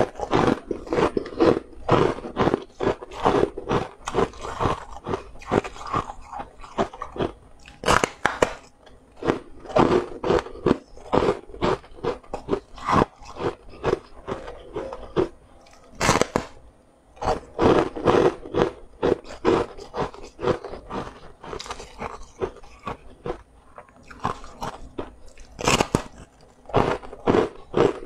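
Close-miked biting and chewing of a large, airy puffed crispy snack: dense, irregular crunching and crackling throughout, with a louder snap with each fresh bite now and then.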